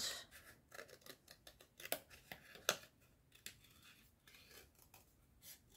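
Scissors snipping through cardstock while cutting roughly around a stamped sentiment: a run of short, irregular snips. The loudest come about two and nearly three seconds in, and the snips grow fainter and sparser after that.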